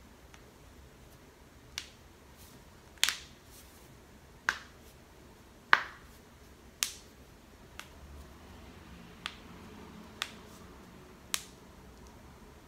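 Knuckles cracking as interlaced fingers are bent and pressed: about nine sharp pops, irregularly spaced, roughly a second apart.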